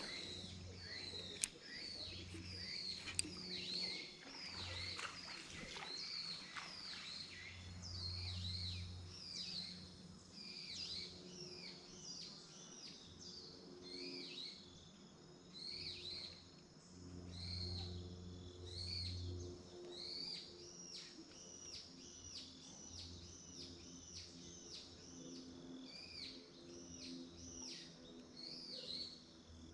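Birds calling: a steady run of short, high, downward-sweeping chirps, several a second. Underneath is a faint low hum that comes and goes, and two sharp clicks sound in the first few seconds.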